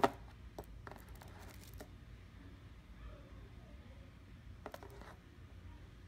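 Small clicks and taps of a 1:400 diecast airliner model being handled and set down on its cardboard box: one sharp tap at the start, a few faint ticks after it, and a short cluster of clicks a little before five seconds in.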